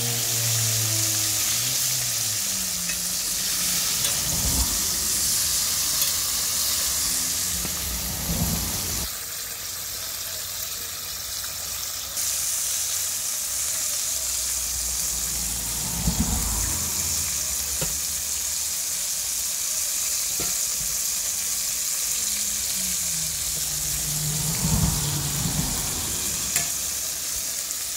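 Coated chicken pieces deep-frying in a pot of hot oil, sizzling steadily, with a few low thumps.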